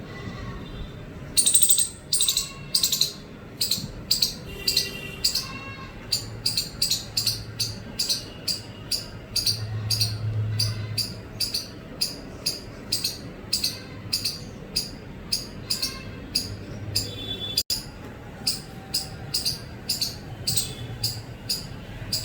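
Indian palm squirrel chirping: a long run of short, sharp, high-pitched chips, about two a second, with a louder, quicker cluster near the start.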